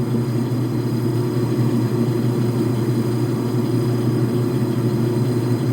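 Logan metal lathe running at a steady speed, its motor and belt drive giving a constant hum.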